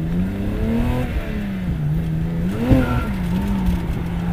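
BMW E30's engine running hard, its revs rising and falling repeatedly as the car is thrown through turns, heard from inside the cabin.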